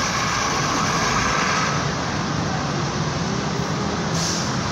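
Heavy city road traffic: a bus's engine running as it pulls away past the curb, then cars passing, over a steady traffic din. A short hiss about four seconds in.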